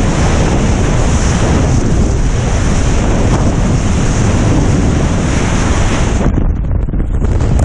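Freefall airstream rushing over a skydiver's helmet-camera microphone as loud, steady wind noise. About six seconds in it suddenly drops to an uneven, buffeting rush as the parachute deploys and the fall slows.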